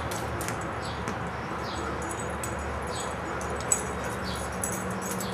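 Outdoor garden ambience: small birds give short, falling chirps every second or so over a steady background hum. A single sharp click comes about three and a half seconds in.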